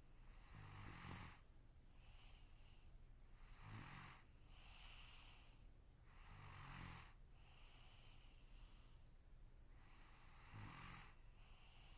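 A sleeping person snoring faintly and regularly: four snores about three seconds apart, each a short low rumble with breathy noise. A softer breathy hiss comes between them.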